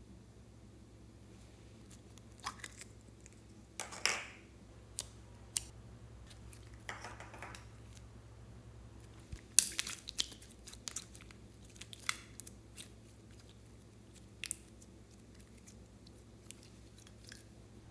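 Slime being squished and stretched by hand: irregular sticky clicks and small pops, with longer wet squelches about four and seven seconds in and a cluster of louder pops around ten seconds in.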